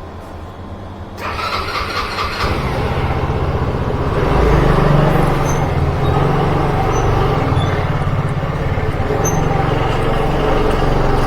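Motorcycle engine starting about a second in, then running steadily with a low engine note that grows louder over the next couple of seconds.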